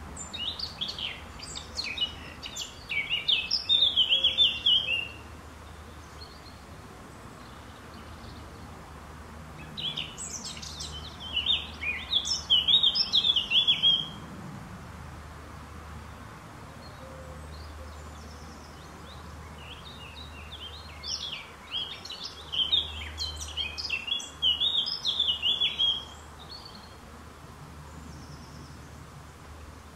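A songbird singing three phrases of several seconds each, with pauses of about five to seven seconds between them, each phrase ending in a fast trill.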